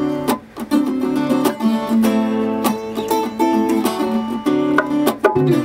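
Acoustic guitar playing plucked and strummed chords in a steady rhythm.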